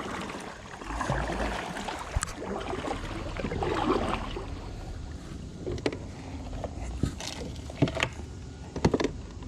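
Handling noises on a fishing kayak: scattered knocks and clicks against the hull, more of them near the end, over a steady background hiss, with a low thump about a second in.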